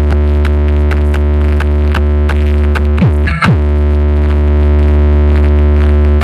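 Electronic music with a heavy, sustained bass line played loudly through a car-audio sound trailer driven by Taramps amplifiers. Falling bass sweeps come in about three seconds in.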